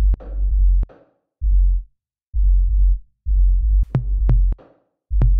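Electronic backing music: deep bass notes that stop and start with short silences between them, punctuated by sharp drum-machine hits.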